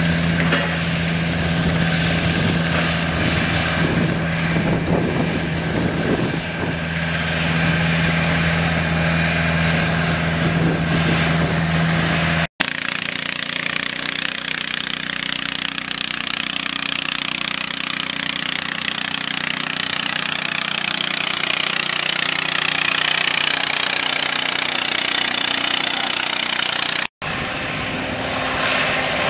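Tractor engines running under load while pulling a weight sled, in three abrupt cuts: a green John Deere antique tractor with a steady low drone, then a small orange lawn-and-garden tractor, then a Case antique tractor.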